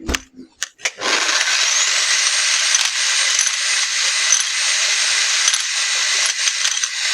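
Electric power tool switched on about a second in: its motor whine rises as it spins up, then it runs steadily and loudly for about six seconds before stopping near the end. A few clicks come before it starts.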